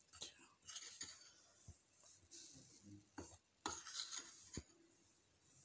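Faint light clinks and scrapes of a metal spoon against ceramic dishes as flour is spooned into a plastic sieve, with a cluster of louder taps a few seconds in.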